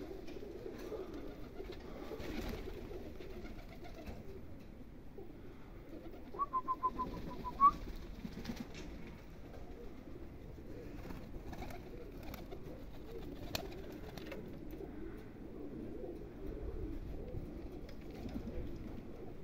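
Domestic pigeons cooing steadily, with a brief run of quick high chirps about six to seven seconds in.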